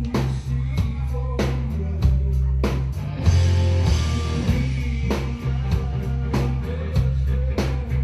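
Rock band playing live: a drum kit keeps a steady beat under bass and guitars, with a cymbal crash about three seconds in.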